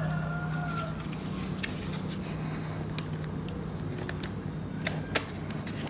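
Scattered light clicks and taps from a laptop and small tools being handled, over a steady low hum.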